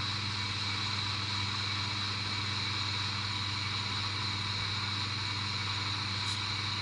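Steady low hum with a constant hiss, unchanging throughout.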